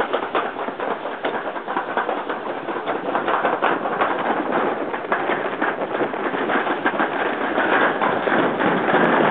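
Toboggan sled running fast down a metal slide chute, a steady rumble full of rapid rattling clicks, growing louder in the second half.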